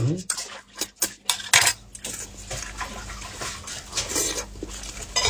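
A metal spoon clinking and scraping against a bowl as a braised sheep's head is pulled apart with gloved fingers: a few sharp clinks in the first two seconds, then a steady crackle of wet handling and eating sounds.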